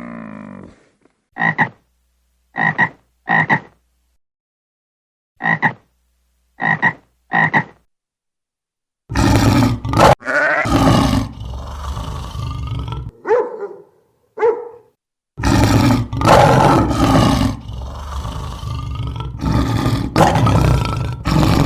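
Frog croaking: short croaks in two groups of three, then from about nine seconds in a longer stretch of louder, rougher, denser croaking.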